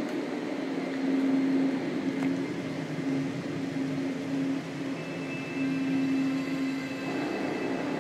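Ominous film-score drone played through a TV speaker: a low held note, with a thin higher tone joining about five seconds in.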